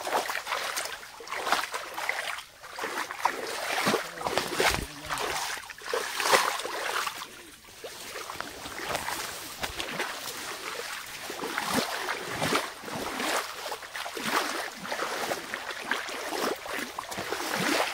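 Leaves and branches rustling and brushing past as a person pushes through dense undergrowth, with irregular crackles, over a shallow stream running steadily.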